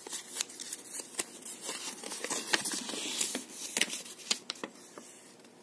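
An accordion-folded paper leaflet being unfolded and handled, giving irregular crisp paper crackles and rustles that thin out toward the end.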